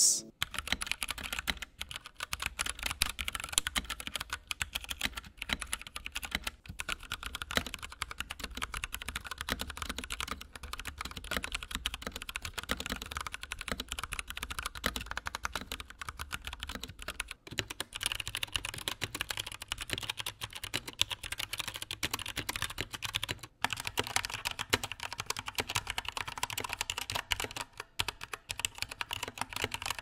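Continuous fast typing on 60% mechanical keyboards, a dense run of key clacks. Around the middle it is a Kemove 61 fitted with Kailh Box Burnt Orange tactile switches and lubed stabilizers; by the end it is a Feker Machinist 1 with Cherry Red linear switches and stock stabilizers. There are brief breaks about two-thirds of the way in and again about three-quarters of the way in, where one recording gives way to the next.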